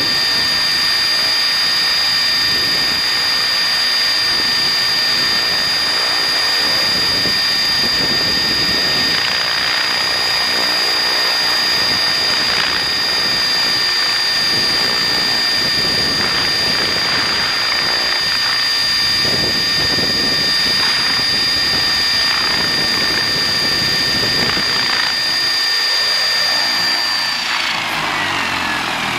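Steady high-pitched whine of a small motor running at constant speed, dropping in pitch near the end as it winds down.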